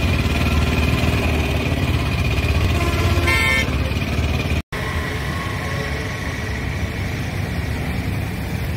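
Steady running noise of a moving vehicle with a short horn toot about three seconds in; the sound cuts out for an instant just past the middle, then the same rumble carries on.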